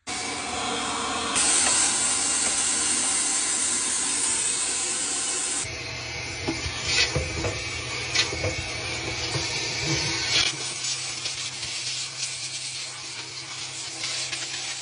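Vacuum cleaner with a dryer-vent hose attachment running, sucking lint out of the dryer vent: a steady rush of air over the motor's hum, changing as the hose is moved, with scattered clicks and rattles of debris in the middle.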